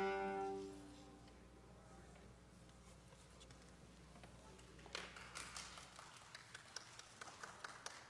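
The final held chord of two violins, a cello and an organ dies away within the first second, leaving quiet room tone. From about five seconds in comes a run of irregular sharp taps.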